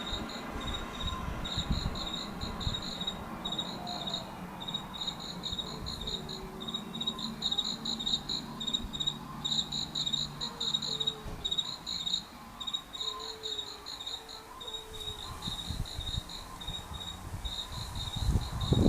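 Crickets chirping in a continuous run of short, rapid trills.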